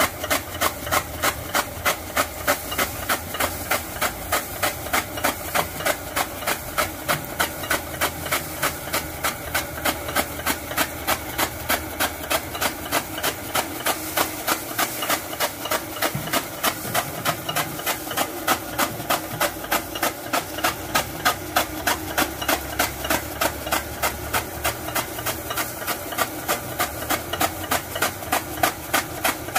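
Chaff cutter's flywheel blades chopping straw as it is fed in: a fast, even chop several times a second over the steady hum of the engine driving the machine.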